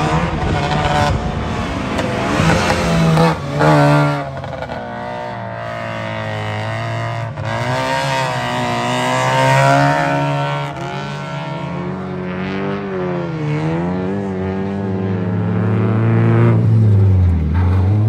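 Rally car engine revving hard, its pitch climbing and falling again and again as it accelerates and changes gear; near the end the pitch drops as it slows.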